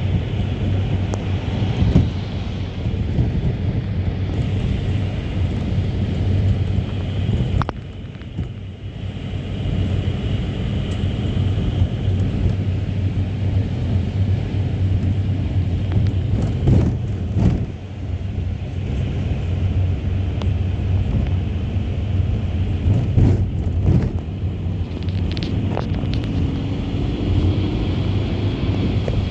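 Route minibus (marshrutka) running along a road, heard from inside the cabin: a steady low engine and road rumble, with a brief lull about eight seconds in and occasional knocks and rattles from bumps.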